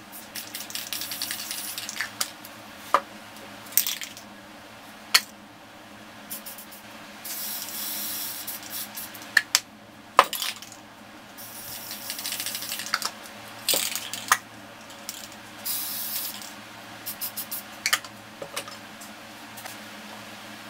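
Aerosol spray paint cans hissing in short bursts, about half a dozen, as paint is sprayed onto poster board. Sharp clicks and knocks come between the bursts, the loudest about ten seconds in.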